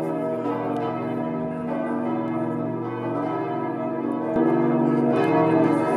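Church bells ringing, several bells sounding together in a sustained peal, growing louder about five seconds in.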